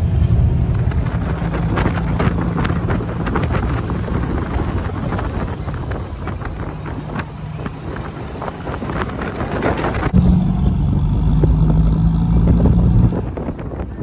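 Jeepney's diesel engine running under way, heard from inside the open-sided passenger cab, with road noise and many small rattles and clicks of the body over the first ten seconds; about ten seconds in the sound changes abruptly to a steadier, louder engine hum.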